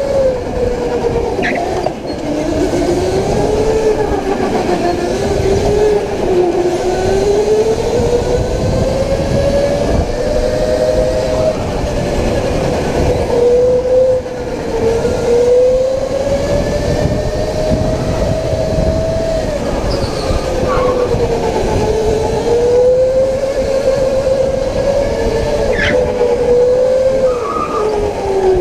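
Electric go-kart motor whining, its pitch rising and falling as the kart speeds up and slows through the corners, over a steady rush of tyre and wind noise. A few brief high squeaks come through.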